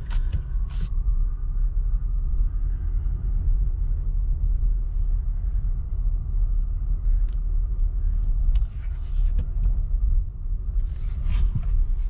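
Low rumble of engine and road noise heard from inside the cabin of a 2009 Nissan Versa SL accelerating hard down a street, steady throughout, with a few light clicks near the end. The car is test-driving after its brake light switch problem, which had left it bogging down with almost no power.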